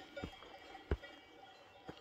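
A hiker's footsteps, three steps with a dull thump at each footfall, over faint bells ringing in the background.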